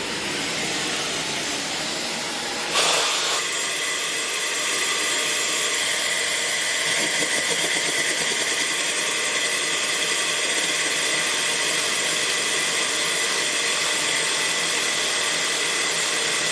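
Electric drill running steadily, spinning a fly cutter down through a cylinder head's inlet valve guide to cut a valve relief into a 318 engine's piston top. There is a brief louder burst about three seconds in.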